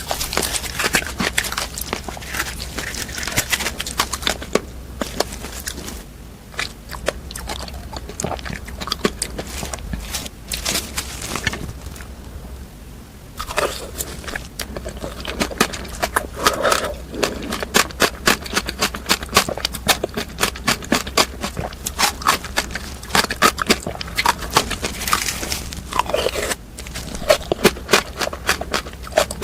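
Close-up crunching and chewing of frozen fruit: a dense run of crackling bites, with a short lull about halfway.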